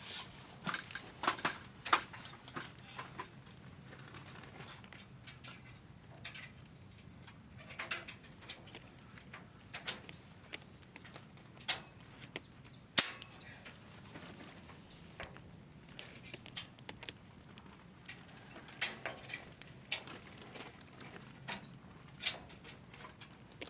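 Irregular sharp metallic clanks and knocks from repair work on a greenhouse's steel pipe frame, single strikes or short clusters every second or two.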